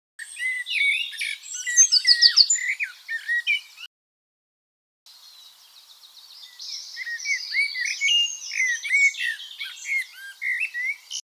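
Blackbird alarm call: a rapid run of short, repeated, curved notes with higher twittering above them. The sound cuts out completely for about a second partway through, then the calling resumes.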